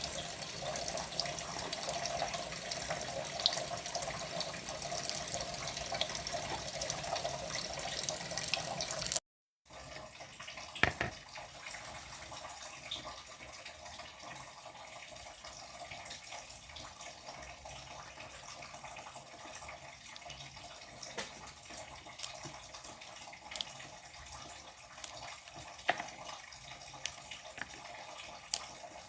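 Water running from a tap into a sink, steady for about the first nine seconds. After a brief break the sound is quieter, with a knock and a few scattered clicks of kitchen utensils.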